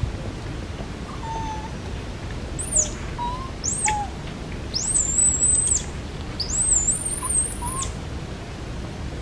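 Bird calls: two short, very high whistles, then two longer high whistles that rise, hold level and drop away, with a few faint lower chirps in between, over a steady low background rumble.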